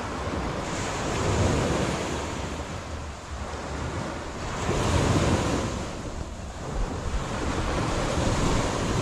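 Sea surf washing up the beach, swelling louder about a second and a half in and again about five seconds in, with wind on the microphone.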